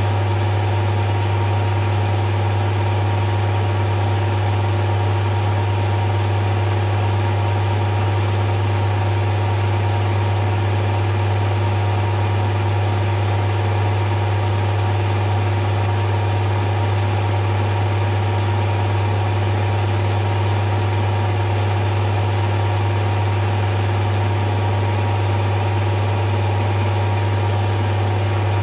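Taiwanese metal lathe running steadily with a strong low hum, turning a long bar supported by the tailstock on a light, slow cut to keep the bar from wallowing.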